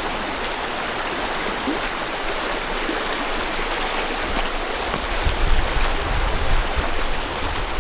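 Steady rushing of river water, with some low rumbling bumps about five to seven seconds in; no firecracker bangs.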